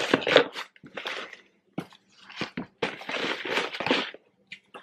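Paper and plastic candy packaging rustling and crinkling in short irregular bursts as items are pushed into a paper bucket.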